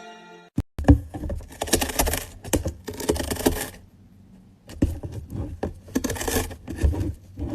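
Scratching and rustling noise with many small clicks, in two stretches of about three seconds each, separated by a quiet second.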